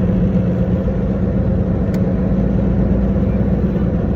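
Car being driven, its engine and road noise making a steady low drone, with a faint click about two seconds in.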